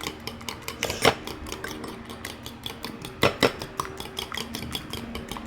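Eggs being beaten in a bowl: a utensil clinks against the bowl in a quick, even rhythm of several strokes a second, with two louder knocks about a second in and about three seconds in.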